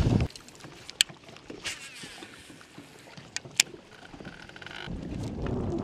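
Handling sounds on a fibreglass bass boat deck: a few sharp clicks and knocks, then about five seconds in a steady low rushing noise comes up.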